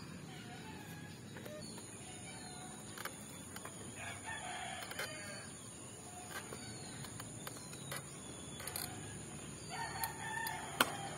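A bird calling several times, a few seconds apart, over a steady high-pitched hiss, with scattered clicks and one sharp click near the end.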